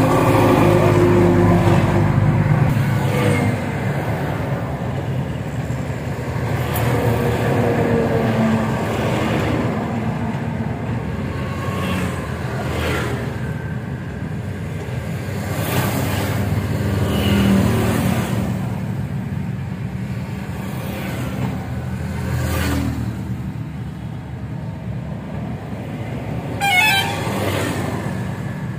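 Motor vehicle engines running in road traffic, with horns tooting now and then and a short warbling tone near the end.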